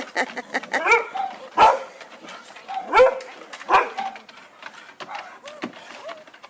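A dog barking and yelping in excited greeting, with a few loud barks through the middle and thin high whines near the end.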